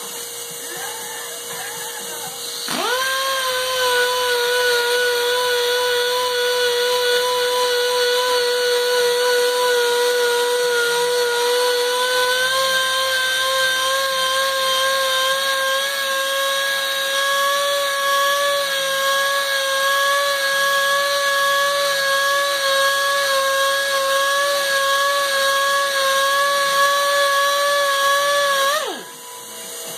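Dual-action (DA) sander running with a steady whine on a cast supercharger housing, sanding with 320 grit. It starts about three seconds in, rises slightly in pitch partway through, and winds down near the end as it is switched off.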